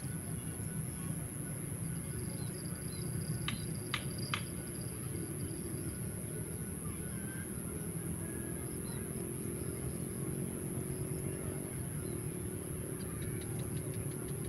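Outdoor lakeside ambience: a steady low rumble with a constant high hiss over it, and three quick sharp ticks about three and a half to four and a half seconds in.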